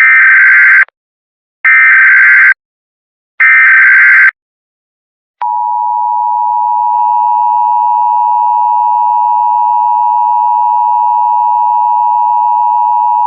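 Emergency Alert System header: three short bursts of warbling digital data tones about a second each, with short gaps, then about five seconds in the steady two-tone EAS attention signal begins. These tones announce the start of an emergency alert broadcast.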